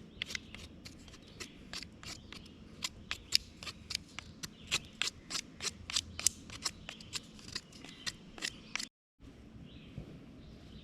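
Wood fire crackling with many sharp, irregular pops and snaps, about three or four a second. It cuts off about nine seconds in, leaving faint outdoor background.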